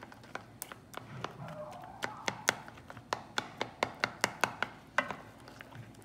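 Spatula stirring a thick pudding mixture in a stainless steel saucepan, clicking against the metal sides and bottom, a run of about three clicks a second through the middle.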